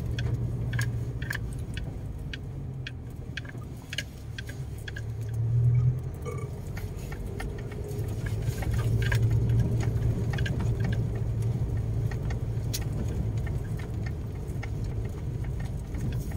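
Car driving on a rough unpaved road, heard from inside the cabin: a steady low engine and road hum with frequent irregular small clicks and rattles as the car bounces over the uneven surface.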